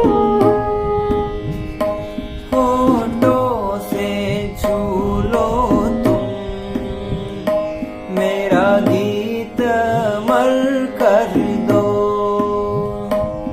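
Ghazal music: a melodic lead line with slides and bends over held drone notes and light hand-drum strokes.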